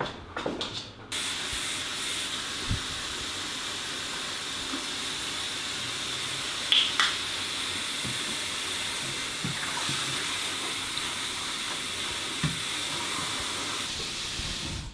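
Kitchen tap running into a stainless steel sink: a steady rush of water that starts about a second in, with two brief sharp clinks about halfway through.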